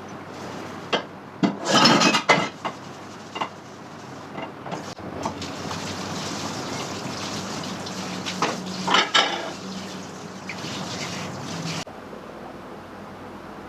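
Dishes and food containers clinking and clattering as they are handled, with a stretch of running water in the middle that cuts off suddenly near the end.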